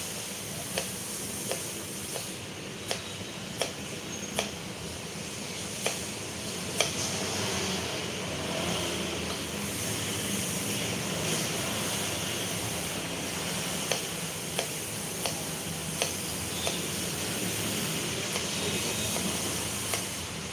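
Kitchen knife cutting a ridged gourd on a wooden chopping board: single sharp knocks of the blade on the board, roughly one every half-second to second, with a pause in the middle, over a steady background hiss.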